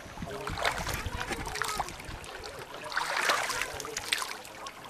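Qanat water pouring out of its tunnel and running along a concrete channel, with two louder bouts of splashing, about half a second in and again around three seconds in.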